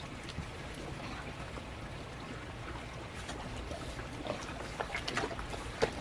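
Hands sloshing and dabbling in shallow pond water, with small splashes that come more often in the last couple of seconds, over a steady low background noise.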